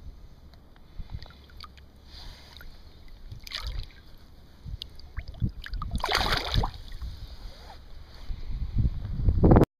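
Water splashing and sloshing at a river's edge with wind buffeting the microphone, rising into louder splashes about three and a half and six seconds in and again near the end, then cutting off abruptly.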